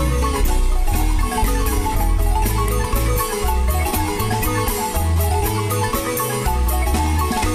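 Marimba music with quick repeated mallet notes over a pulsing bass line.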